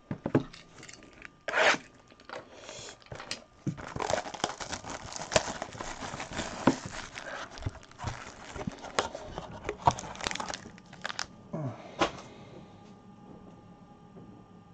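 Plastic shrink-wrap being torn and crinkled off a trading-card box, with the cardboard box handled and its lid opened, giving sharp taps and knocks among the crinkling. The noise stops about twelve seconds in.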